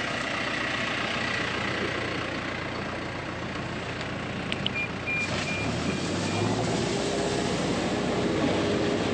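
Heavy farm engine running steadily, with a short run of high electronic beeps about halfway through.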